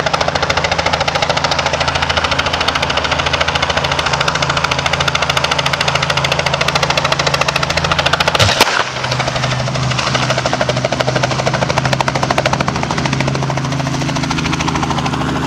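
Small two-bladed helicopter running close by, its rotor and engine making a fast, even chopping. About eight and a half seconds in there is a single sharp crack as it strikes the overhead power lines, after which the rotor keeps turning with a changed engine note.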